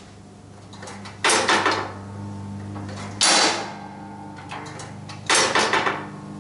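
Spring-loaded Grass Flap OCDC chute blocker on a walk-behind mower's side discharge snapping shut against the deck, a metallic clank three times about two seconds apart, over a low steady hum.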